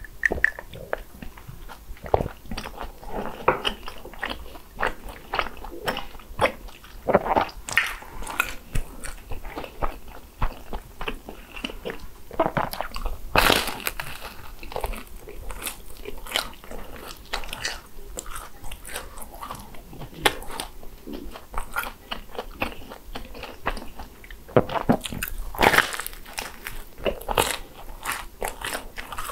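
Biting and chewing of crisp croffles (croissant waffles): repeated crackly crunches with chewing in between. The loudest bites come about 13 seconds in and again around 25–26 seconds in.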